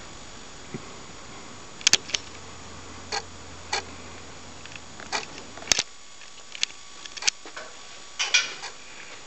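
Irregular sharp clicks and taps, one or two a second, some in quick pairs, over a low steady hum that stops abruptly about six seconds in.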